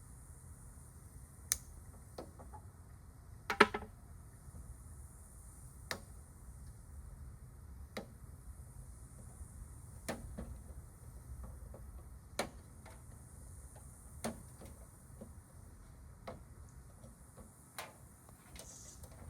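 Sharp clicks and knocks of hand tools on a scrap appliance's metal, one about every two seconds. The loudest is a short clatter about three and a half seconds in.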